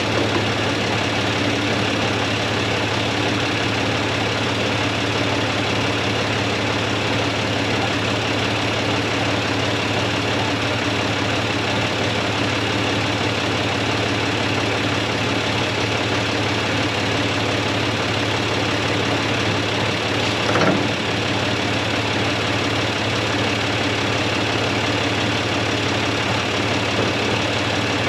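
John Deere 2155 tractor's diesel engine running steadily at a constant speed. There is one short knock about two-thirds of the way through.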